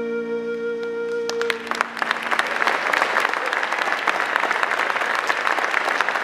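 A folk band's final held chord ends about a second and a half in, and an audience breaks into steady applause that carries on.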